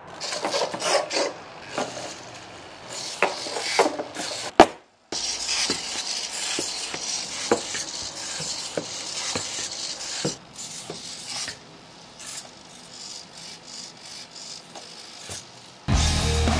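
Small hobby servos of a 3D-printed four-legged spider robot whirring, with its plastic feet clicking and scraping on the tabletop in quick irregular ticks. Music comes in at the very end.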